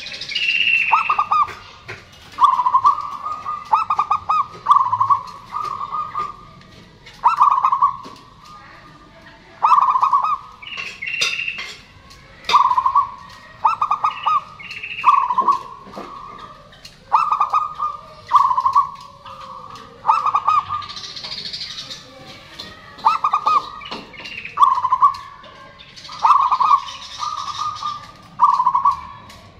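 Zebra dove (perkutut) cooing over and over. Each phrase starts with a quick stutter of short notes and ends in a held coo, and the phrases come in clusters every few seconds.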